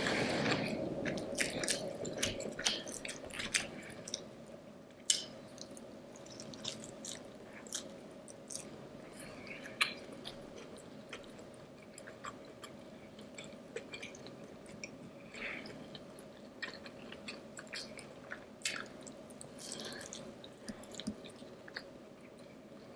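Close-miked chewing and wet mouth sounds of a person eating, with frequent short sharp clicks. It is busiest in the first few seconds, with louder single clicks about five and ten seconds in.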